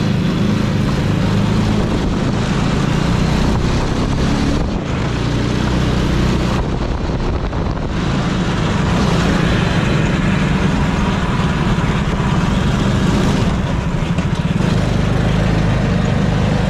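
Small petrol engine of a ride-on off-road vehicle running while it drives along a dirt and grass track, a steady low engine note that eases briefly about five seconds in.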